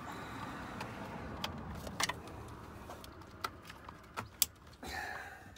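Plastic wiring-harness plugs and the head unit's casing clicking and rattling as they are handled behind the dash: about five short, sharp clicks over a steady low hiss.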